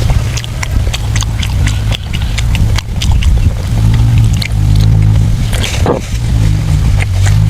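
Close-up chewing and mouth sounds of someone eating soft braised pork intestines: irregular wet clicks and smacks, with a brief louder squelch about six seconds in. A steady low hum runs underneath.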